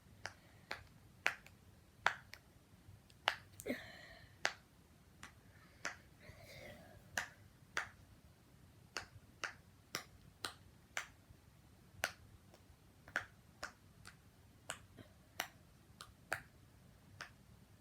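Popsicle-shaped silicone pop-it fidget toy being popped bubble by bubble: a long series of small, pretty quiet pops, about one or two a second.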